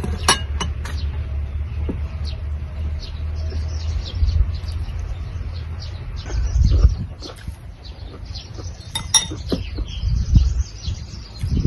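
Birds chirping repeatedly in short high calls, with two sharp clinks of a spoon against a glass bowl, one right at the start and another about nine seconds in. A steady low rumble runs under the first few seconds.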